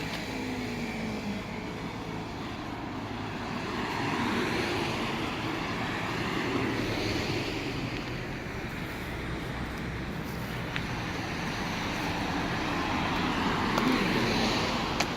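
Road traffic: cars passing, their tyre and engine noise swelling twice and fading in between.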